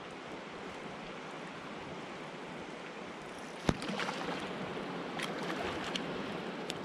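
Steady rush of river water, with one sharp knock a little past halfway, then a few lighter clicks as the water noise rises slightly.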